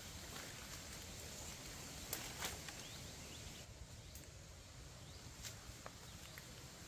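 Faint forest background with a steady high hiss, broken by a few light cracks and rustles from a person moving over dry leaves and twigs and climbing a tree trunk; the two sharpest cracks come about two seconds in.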